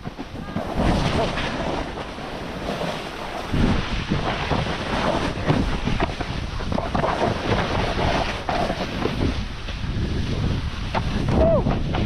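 Wind buffeting the microphone: a steady, gusty rumble.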